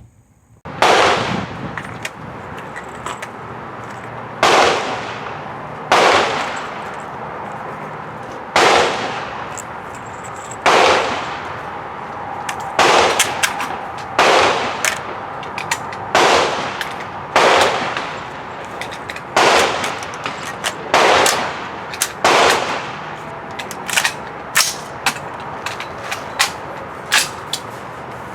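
AR-15 rifle firing a string of single shots, one every one to two seconds, each with an echoing tail. It is being test-fired after a crimped gas tube that caused short-stroking and jamming was fixed. Fainter, sharper cracks fall between the main shots.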